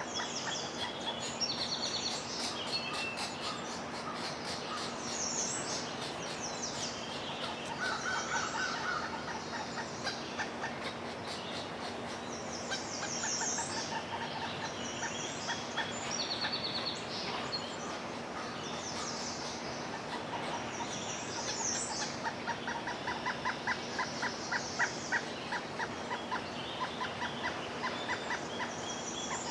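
Birds calling: many short, high chirping calls repeat throughout, joined by runs of rapid pulsed lower notes in the middle and more continuously in the last third. A faint steady low hum runs underneath.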